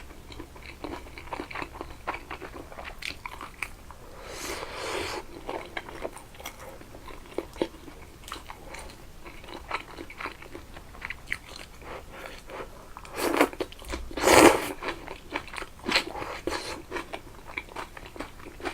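Close-miked chewing and crunching of food from a crab pot, with many small crisp clicks. Louder, longer crunches come about four and a half seconds in and twice around thirteen to fourteen seconds in, the last being the loudest.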